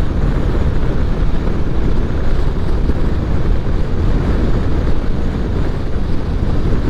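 Motorcycle riding noise at motorway speed, heard from the rider's helmet microphone: steady rushing wind over the microphone mixed with engine and road noise.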